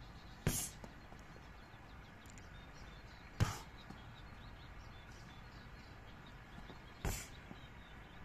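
Three sharp slaps of a foot landing on a handheld kick shield, spaced about three and a half seconds apart: Muay Thai push kicks (teeps) into the pad.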